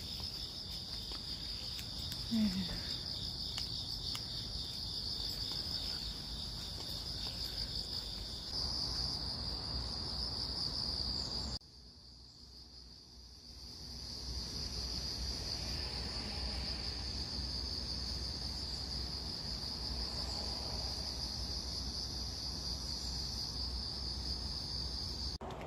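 Insects chirring in a steady, high-pitched drone. The sound cuts out suddenly about halfway through and comes back within a couple of seconds.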